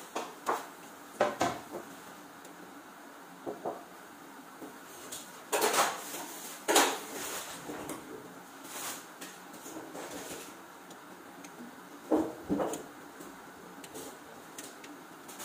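Kitchenware being handled: irregular knocks and clinks of dishes, pots and utensils, with the loudest clatters about six and seven seconds in and another pair about twelve seconds in.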